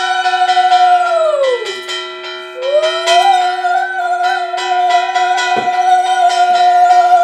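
A conch shell (shankha) blown in two long, steady notes, each dropping in pitch as the breath runs out; the first ends about a second and a half in and the second starts a second later. A hand bell rings rapidly under it throughout, as during a puja aarti.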